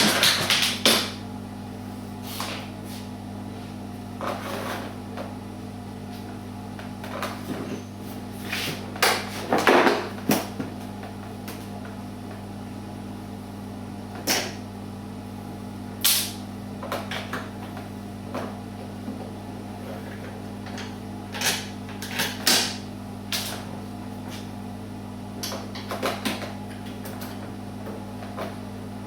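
Intermittent knocks, clicks and clatter of parts and tools being handled on a workbench, over a steady low hum.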